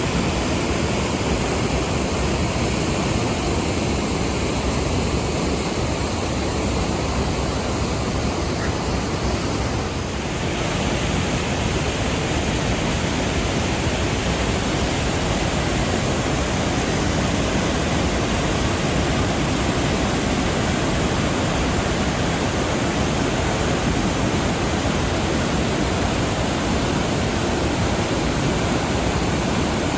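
Waterfall: loud, steady rushing of falling water, easing slightly for a moment about ten seconds in.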